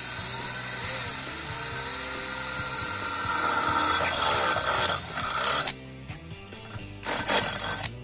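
Cordless drill with a step bit boring through the wall of a metal insulated cup, the bit squealing high on the metal. It runs for about five and a half seconds, stops, then gives a shorter second burst near the end.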